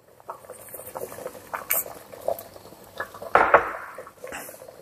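Thick sambar boiling in an open pressure cooker pot, bubbling with small irregular pops. A wooden spoon stirs through the curry, with one louder swish about three and a half seconds in.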